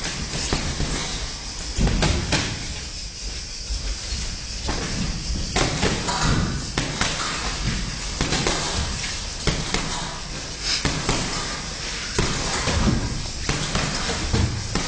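Boxing sparring in a ring: irregular slaps and thuds of gloved punches landing and of feet on the ring canvas.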